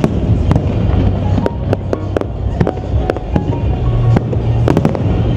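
Aerial fireworks display bursting overhead: a quick, irregular run of sharp bangs, about three a second.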